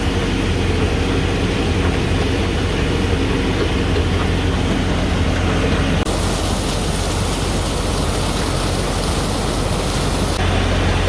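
Sherp 10x10 all-terrain vehicle's engine running steadily, a low hum under an even hiss. About six seconds in, a harsher, higher hiss comes in suddenly and cuts off again about four seconds later.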